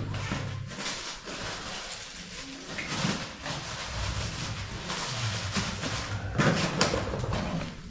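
Hand tools clinking and clattering as they are rummaged and picked out of a metal tool cart, in a few short bursts, over a steady low hum.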